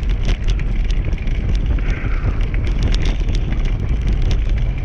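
A dog-drawn dryland rig rolling fast over a rough dirt track: a steady low rumble from the wheels, many sharp clicks and rattles from the frame, and wind buffeting the microphone.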